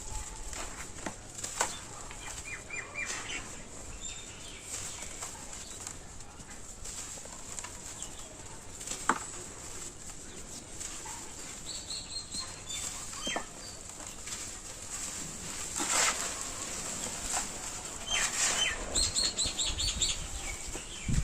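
Dry roasted dirt crumbling between the fingers: a run of gritty crunches and sharp crackles. Birds chirp in short runs of high notes in the background, the busiest near the end.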